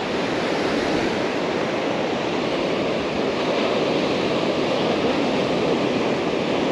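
Steady rush of breaking surf washing up the beach, mixed with wind.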